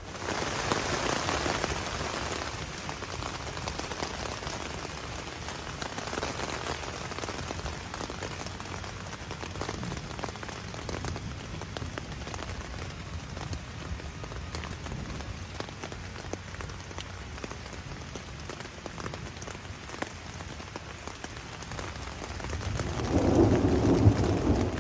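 Rain falling steadily in a thunderstorm, with many small drop ticks, and a low rumble of thunder swelling near the end.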